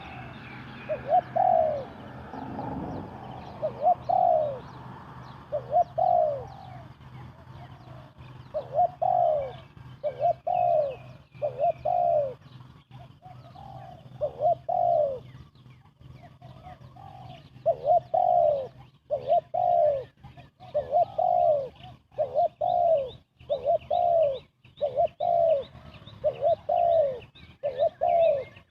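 Spotted dove cooing rapidly and over and over: short arched coo notes in groups of two or three, a phrase about every second.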